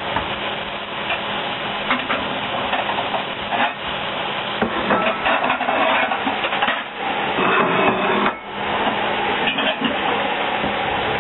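Cauliflower-rice stir-fry sizzling steadily in a cast-iron skillet, with repeated clinks and clatter of dishes and utensils, busiest about five to eight seconds in.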